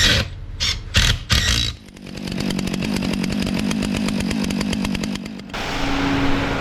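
A few sharp clicks and knocks of metal parts being handled, then a power tool running with a fast, even rattling buzz for about three seconds, followed by a steadier hum.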